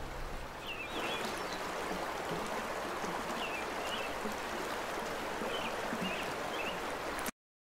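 River water rushing steadily, with a few short high chirps over it. The sound cuts off suddenly near the end.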